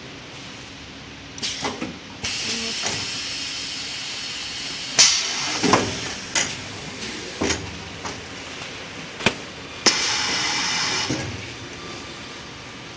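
Semi-automatic toilet paper packing machine at work: two bursts of hissing, each lasting a second or two, with sharp clicks and knocks between them, over a steady background hiss. The loudest sound is a sharp knock about five seconds in.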